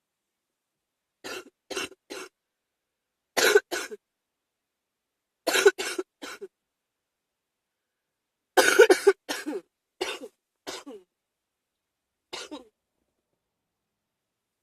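A person with a spring cold coughing in short bouts of two or three coughs, the longest and loudest run about nine seconds in, and a single cough near the end.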